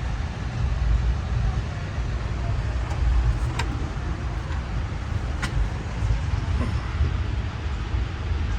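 Steady low rumble of a passenger railcar rolling along the track, heard from inside the car, with two short sharp clicks, about three and a half and five and a half seconds in.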